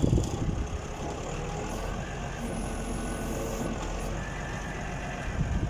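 Forklift's Isuzu 6BG1 six-cylinder diesel engine running steadily under hydraulic load as the mast is raised and tilted. It is being load-tested to see whether it still stalls after its fuel system was bled and a leak fixed.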